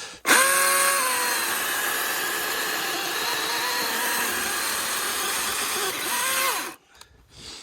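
Milwaukee M18 cordless chainsaw sawing through a log: the motor whine dips as the chain bites into the wood, runs under load for about five seconds, rises again as it breaks through, then winds down when the trigger is released.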